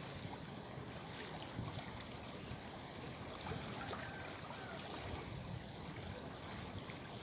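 Steady rush of a fast-flowing river running over rocks, an even wash of water noise with no break.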